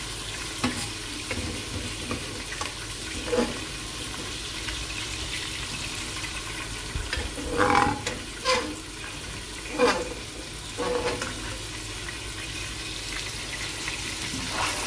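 Boiled mutton pieces frying in hot oil in a stainless steel karahi, with a steady sizzle. A steel ladle clinks against the metal pots several times as the meat is ladled in, the loudest clinks about halfway through.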